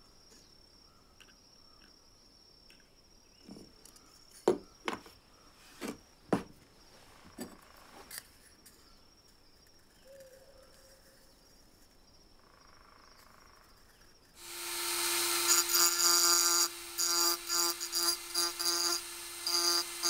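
A few sharp knocks and clicks of small metal parts being handled. Then, about two-thirds of the way in, a small handheld rotary tool starts up with a steady high whine and runs on, dipping briefly several times as its thin bit scrapes inside the rim of the red lamp-lens cap.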